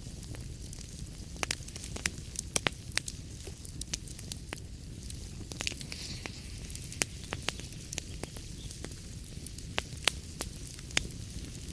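Wood fire burning in a fireplace: a steady low rumble of flames with irregular sharp crackles and pops from the burning logs, a few louder pops among them, and a brief hiss about halfway through.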